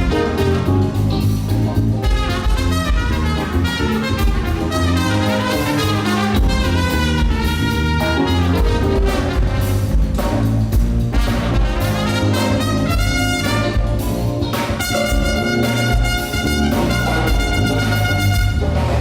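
Live funk band playing an instrumental with saxophone and horns carrying the melody over bass, drums and keyboards. The horns hold long notes near the end.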